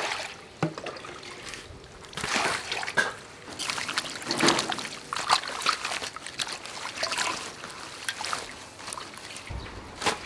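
Water splashing and sloshing in a steel basin as a bunch of green onions is swished and rubbed clean by hand, in irregular splashes with water trickling off the stalks.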